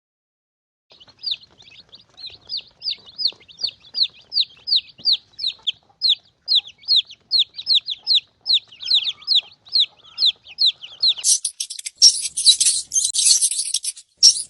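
A small animal's rapid series of short, high squeaky chirps, each sliding down in pitch, about three or four a second. About eleven seconds in, these turn into a harsh, scratchy, very high chatter.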